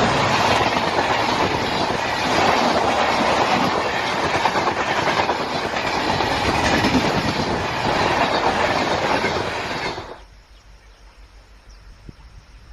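Indian Railways train running on the tracks: a loud, steady rattle and rumble of wheels and carriages that cuts off suddenly about ten seconds in, leaving only a faint background.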